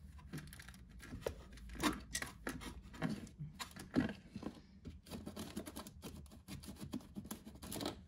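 The small cleaning tool supplied by Roidmi scraping and clicking against plastic as it clears debris out of a hard-to-reach part of a Roidmi Eva robot vacuum's self-cleaning station. The scrapes are irregular, with sharper knocks about two and four seconds in.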